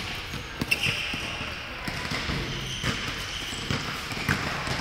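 Basketball bouncing on a wooden court floor, a few separate bounces, along with short high squeaks of sneakers on the court.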